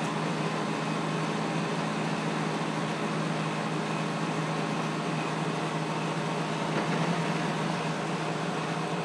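Steady mechanical hum of a running motor or fan: an even low drone with a whir over it that does not change.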